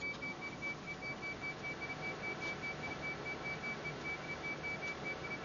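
Truck's reversing warning beeper sounding: a high electronic tone broken by short gaps about three times a second, over the low hum of the engine.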